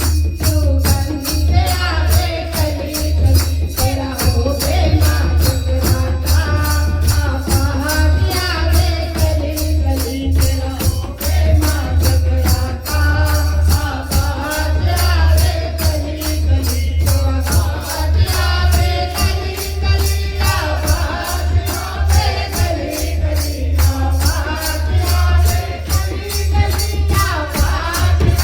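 Hindu devotional kirtan music for a jagrata: a melody carried over a fast, steady jingling beat and a heavy drum bass.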